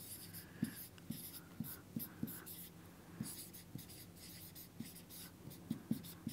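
Marker pen writing on a whiteboard: faint scratchy strokes with irregular light taps as the letters are formed.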